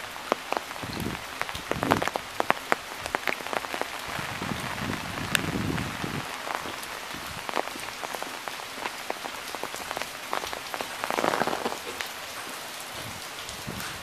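Steady rain, with many sharp drop taps on hard surfaces close by and a couple of brief louder swells.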